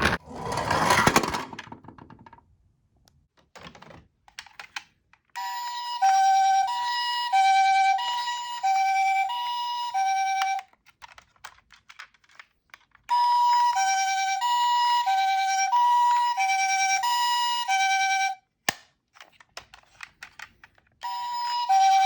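Japanese ambulance two-tone hi-lo siren: a high note and a lower note alternate, each held about half a second, in three runs of around five seconds with short gaps. Light clicks and taps fall in the gaps, and a brief rushing noise comes at the very start.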